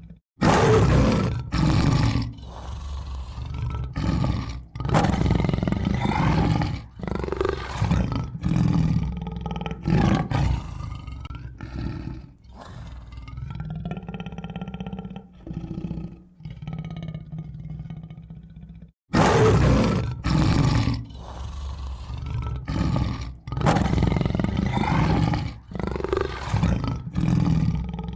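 Tiger roaring and growling: a run of loud roars with quieter growling stretches between them. The sequence breaks off briefly about two-thirds of the way in and starts over with a loud roar.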